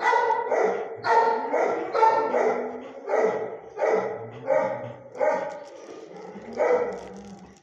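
A dog barking repeatedly, about one bark every half second to second, echoing in a kennel with concrete-block walls.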